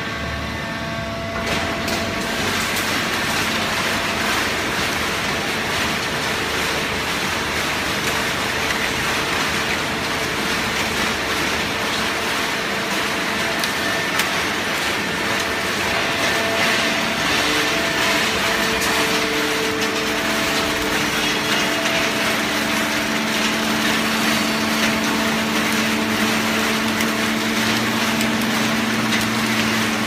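Horizontal hydraulic baler for cardboard running: steady machine noise with a hum from its motor and pump, and a lower hum growing stronger about two-thirds of the way through.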